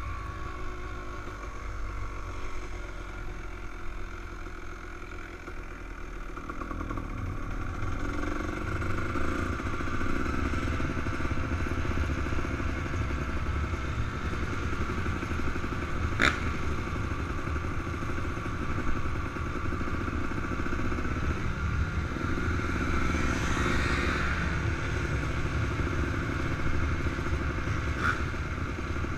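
Honda CR250R's 250 cc two-stroke single-cylinder engine running at low revs as the dirt bike rolls along, picking up and getting louder about a quarter of the way in. A single sharp click comes about halfway through.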